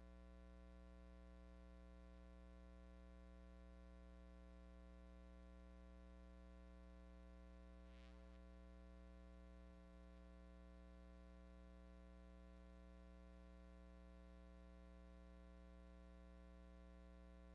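Near silence, with only a steady electrical hum and its overtones, and a faint short hiss about eight seconds in.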